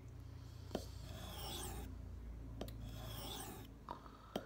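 Steel knife blade being stroked across a whetstone: a soft, even rasping in long passes of a second or more, with a few light clicks in between.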